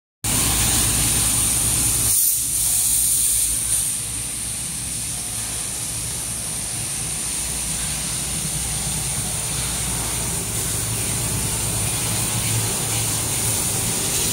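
Steady hum and hiss of an enclosed 2 kW fiber laser cutting machine running. It is a little louder for the first few seconds.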